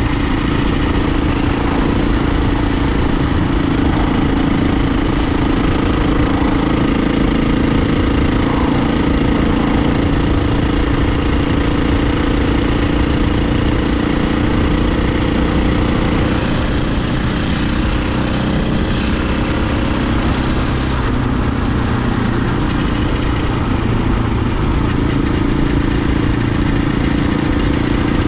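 Dirt bike's engine running steadily at cruising speed on a paved road, with wind noise. The sound dulls for a few seconds a little past halfway, then picks up again.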